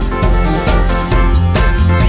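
Music with a steady drum beat and sustained keyboard-like chords.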